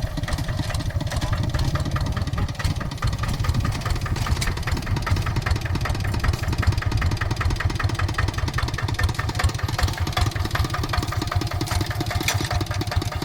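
Kubota RD65 DI single-cylinder diesel engine on a Quick Capung Metal hand tractor, running steadily with an even, rapid beat of firing strokes.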